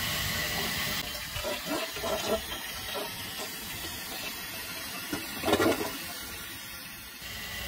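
Toilet refilling after a flush: water hissing steadily through the fill valve into the tank and down the bowl refill tube, which is partly pinched by a flow-restrictor clamp. A brief louder rush of water comes about five and a half seconds in.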